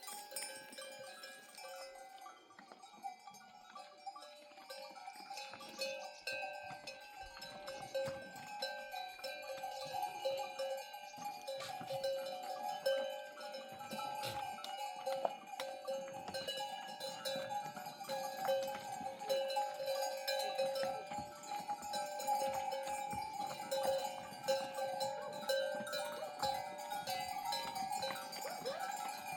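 A goat herd's neck bells ringing and clanking steadily as the animals move, two bell tones sounding over and over, with small knocks and hoof clicks among them.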